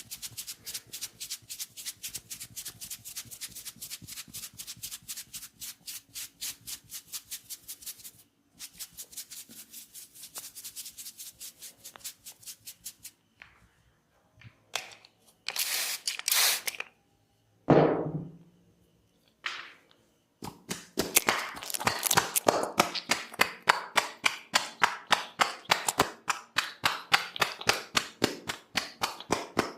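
Tok Sen massage: a wooden mallet tapping a wooden stick held against the body, rapid even taps several a second. The tapping breaks off for several seconds in the middle, leaving only a few scattered sounds, then resumes louder and denser.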